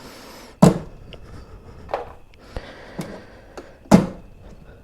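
Sharp knocks and clicks from a hard motorcycle saddlebag and its mounting hardware being handled and fitted. Two loud knocks come about half a second in and near the end, with lighter clicks between them.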